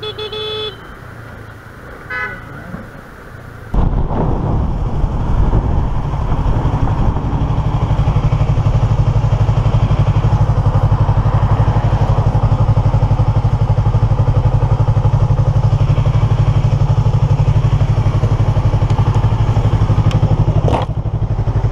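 A short vehicle horn toot. From about four seconds in, a sport motorcycle's engine runs steadily and loudly, heard from on the bike.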